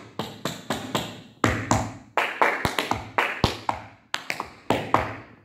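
Metal taps on tap shoes striking a hard floor in a quick, uneven run of sharp clicks in short groups with brief breaks. This is a tap combination of shuffles, heel drops and ball taps danced at speed.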